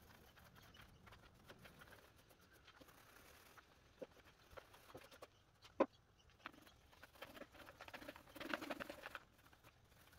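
Small paint roller on a long handle rolling paint, a faint sticky crackle with scattered clicks. There is a sharp click about six seconds in, and the crackle grows louder for a second or so near the end.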